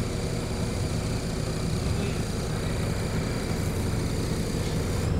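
Steady engine and road noise of a moving bus, heard inside the passenger cabin: an even, unbroken drone with a low hum.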